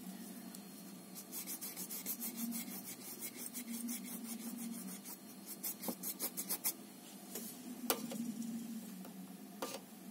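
Paintbrush working over wet watercolour paper in a quick, even run of scratchy strokes, about four a second, then two single light knocks near the end, over a low steady hum.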